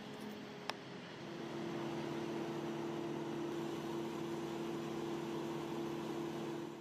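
Engine of a work vehicle idling with a steady hum that grows louder about a second in, with a single sharp click just before.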